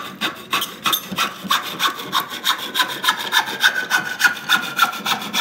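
Handsaw ripping a board of 3/4-inch pine along the grain, in quick, even strokes about three a second.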